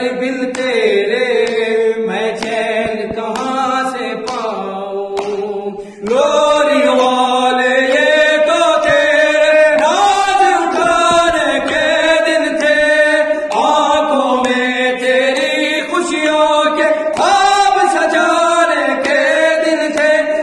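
Two male voices singing a noha, an Urdu Shia lament, unaccompanied into a microphone, with long wavering melodic lines. Around six seconds in the singing gets louder and fuller.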